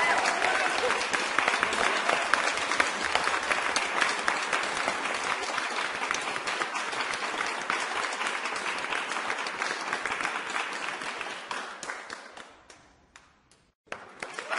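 Crowd applause, many hands clapping together, steady for most of the time and then dying away to a few scattered claps near the end before clapping picks up again.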